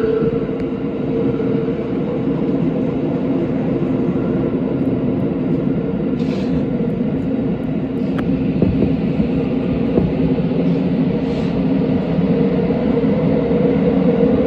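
Tokyo Metro 17000-series subway train running at speed through a tunnel, heard from inside the car: a steady rumble of wheels and motors with a held hum. Two short high-pitched bursts come about six and eleven seconds in.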